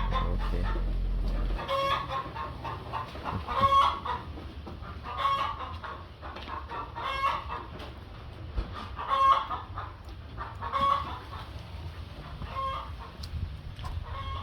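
Chickens clucking repeatedly, a short call every second or two. A steady low hum stops about a second and a half in.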